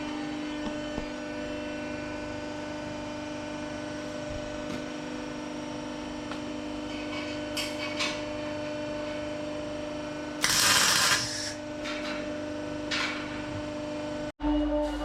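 Steady electrical hum of workshop equipment. About ten seconds in, a short, loud hissing burst cuts across it, and there are a few faint ticks.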